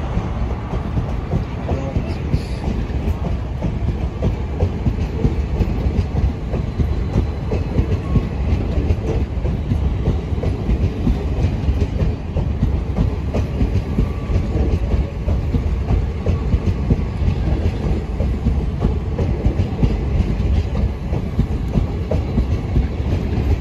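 Indian Railways express passenger coaches rolling past at a platform as the train arrives: a steady rumble with the clack of wheels over the rail joints.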